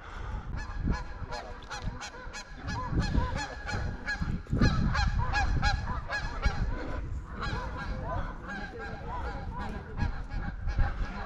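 A flock of birds calling: many short, repeated calls that overlap, several a second, over a low rumble.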